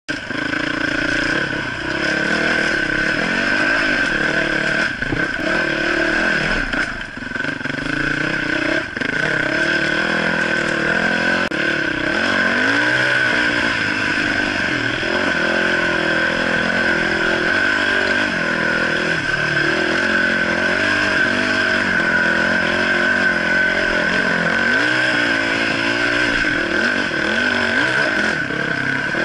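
Dirt bike engine running under load over a rough trail, its revs rising and falling every second or two as the throttle opens and closes. A steady high-pitched whine sits over the engine note.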